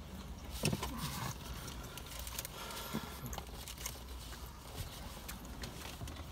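Steady low hum in a car cabin, with scattered soft clicks and small rustles.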